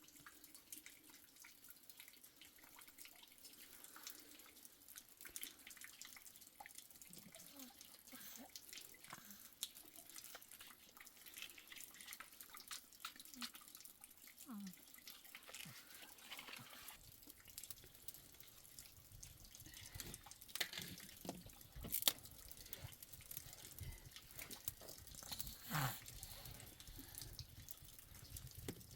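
Water dripping and trickling, with many scattered small clicks and light knocks.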